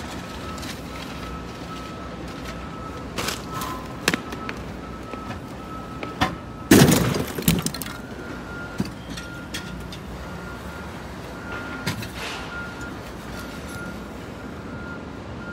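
Junk being thrown out of a box truck onto a debris pile: scattered knocks and clatters, with one loud crash about seven seconds in.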